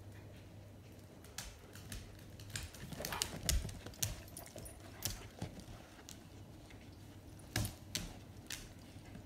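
A German Shepherd and a Schipperke puppy scuffling over a toy: claws clicking and scrabbling on hard tile, with scattered knocks. The taps come in irregular flurries, loudest about three seconds in and again near the end.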